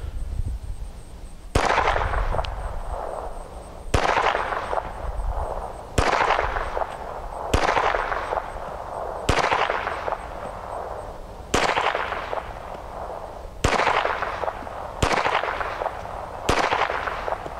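Phoenix Arms HP25 .25 ACP pocket pistol fired nine times in slow single shots, roughly two seconds apart, each sharp crack followed by a short echoing tail.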